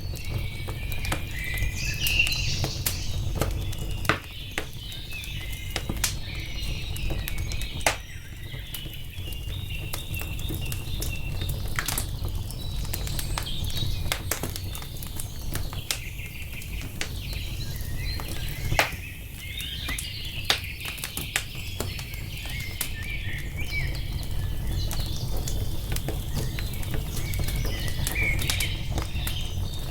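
Wood fire crackling, with scattered sharp pops over a steady low rumble, while songbirds chirp and twitter in bursts throughout.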